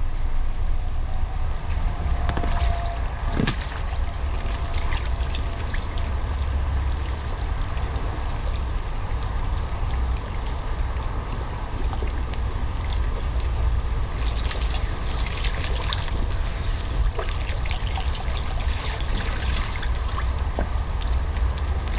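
Pool water sloshing, splashing and dripping as a person wades and moves about in it, with more small splashes toward the end. A low wind rumble on the microphone runs underneath.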